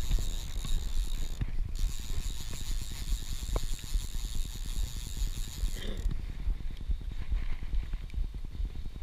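Fly reel's click-and-pawl drag ratcheting rapidly as a hooked fish pulls line off the reel, the run changing about six seconds in. A low rumble of wind on the microphone lies under it.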